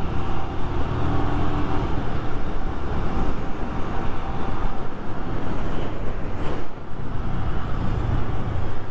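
Wind rushing over the microphone of a motorcycle on the move, mixed with the steady running of the rider's Royal Enfield Himalayan single-cylinder engine.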